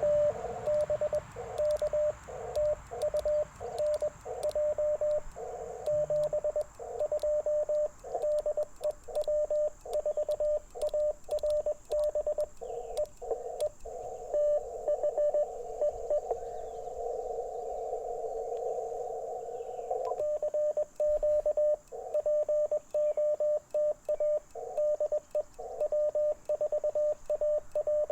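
Morse code (CW) from an Icom IC-705 transceiver: a single-pitched beep keyed in dots and dashes over a narrow band of receiver hiss. A little past the middle the keying stops for several seconds, leaving only the hiss, then starts again.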